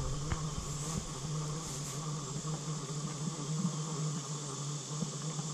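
Insects buzzing: a steady, slightly wavering low drone with a fainter high hiss behind it.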